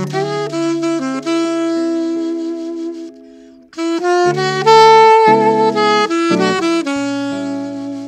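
Alto saxophone playing a slow jazz ballad melody over jazz guitar accompaniment. The music dips briefly about three seconds in, then the saxophone comes back louder with a held high note around the five-second mark.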